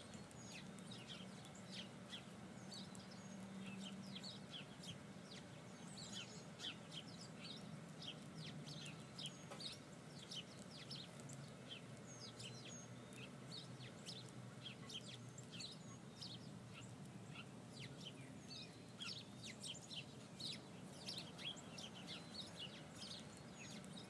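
Faint birds chirping outdoors, many short quick calls scattered throughout, over a low steady hum.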